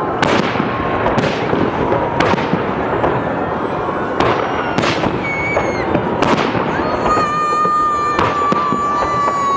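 Fireworks display: about seven loud shell bursts with dense crackling between them. Whistling tones rise over the bangs, and a long, steady whistle sounds through the last couple of seconds.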